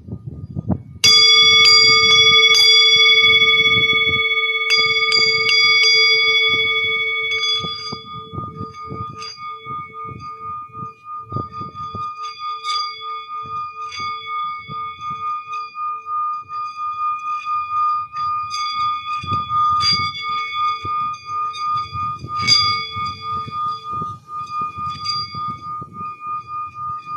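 A bell-like metal instrument is struck about a second in and rings with several overtones. A clear tone carries on, pulsing slowly in loudness, while lighter taps and strikes sound over it.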